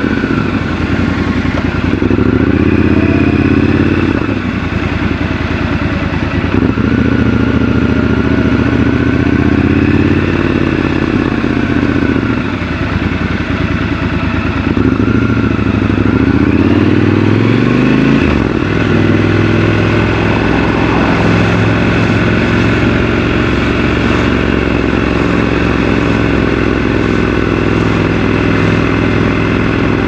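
Triumph Scrambler 1200 XC's 1200 cc parallel-twin engine running in city riding, its pitch rising and falling as the bike accelerates and slows, with a clear climb in revs about 17 seconds in.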